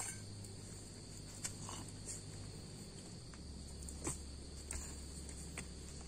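Steady high-pitched chirring of forest insects, with a few light clicks and knocks from bowls, mugs and spoons being handled.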